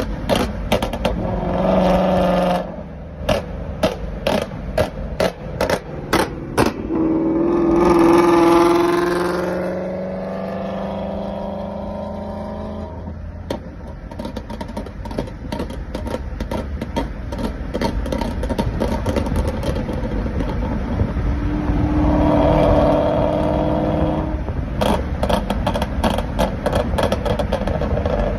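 Ford Mustang with long-tube headers and a Borla cat-back exhaust pulling hard twice, heard from a car following behind. The exhaust note climbs in pitch about eight seconds in and again about three-quarters of the way through. Rapid strings of sharp cracks and pops come before the first pull and near the end.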